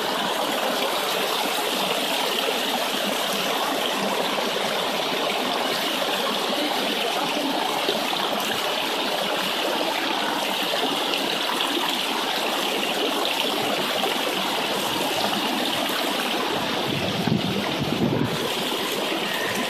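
Water rushing steadily down a metal sluice box, washing gravel over the riffles. A few low bumps come near the end.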